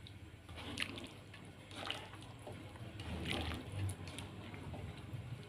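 Black plastic spatula stirring a coconut-milk curry in a nonstick wok: faint wet sloshing of the sauce with a few light clicks and scrapes.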